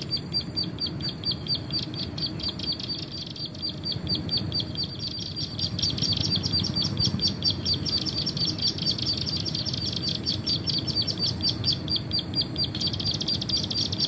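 Recorded prinia (prenjak) call played from an MP3 lure player: a fast, even run of short high chirps, about five a second, that grows denser near the end.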